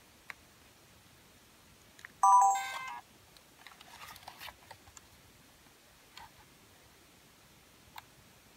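Sony SDR-SR200 camcorder's electronic chime, a short multi-tone beep tune lasting under a second about two seconds in, as it switches from the playback screen to camera standby. Faint clicks of its buttons and handling follow.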